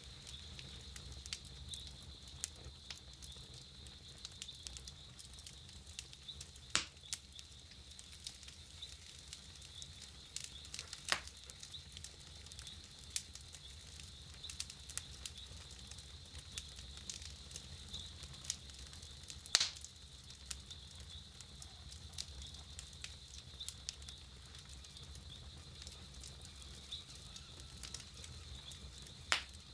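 Wood campfire crackling: a steady scatter of small pops and clicks, with a few louder sharp snaps spread through.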